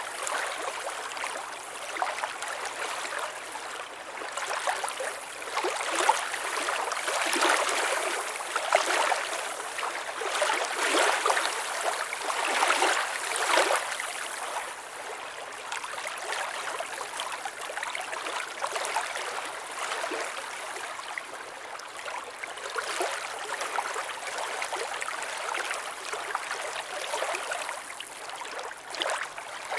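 Water trickling and splashing in a continuous, uneven flow of small splashes.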